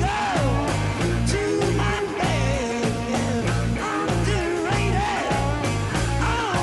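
Live hard-rock power trio playing: electric guitar, bass and drums on a steady beat, with a bending, wavering melody line above them.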